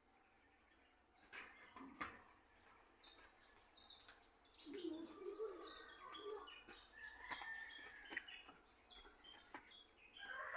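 Faint, scattered bird chirps, with a few small clicks about a second and two seconds in.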